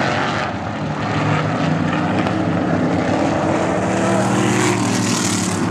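Vintage caged sprint car engines running hard as several cars lap the oval, a steady loud drone whose pitch shifts slightly as they pass.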